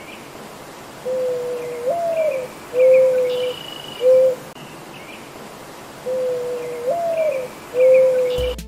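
A mourning dove sings its cooing song twice, about five seconds apart. Each phrase starts with a low coo, swoops up and back down, then ends in shorter level coos. Faint chirps of other birds sound in the background.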